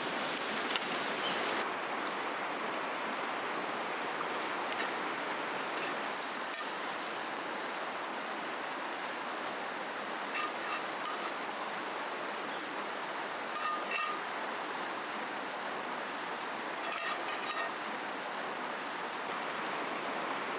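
Steady rushing of a flowing river, with a handful of short clicks or pops standing out now and then. A brighter, hissier water sound cuts off abruptly a couple of seconds in.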